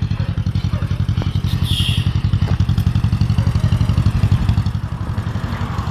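1952 John Deere MT's two-cylinder engine running with a steady, even pulsing beat, a little louder midway through.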